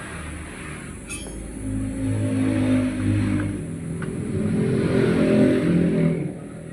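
A motor running, swelling louder twice over about five seconds before dying away.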